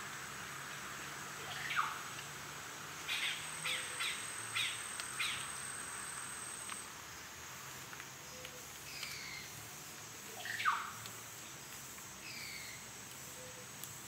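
Amazon rainforest daytime ambience: a steady high-pitched insect drone with birds calling over it. A loud call sweeps downward twice, there is a quick run of about five short sharp notes, and down-slurred whistles come in pairs.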